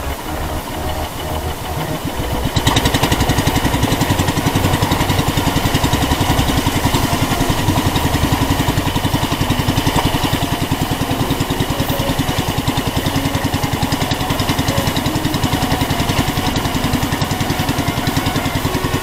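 Guitar music for the first couple of seconds, then a small fishing outrigger boat's engine comes in loud and runs steadily under way, a fast even beat of firing strokes, about two and a half seconds in.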